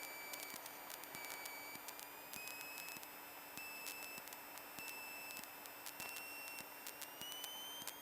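Faint, steady high-pitched electrical whine that slowly rises in pitch, with scattered sharp ticks over a low hiss, picked up in a Cessna 152's cockpit audio.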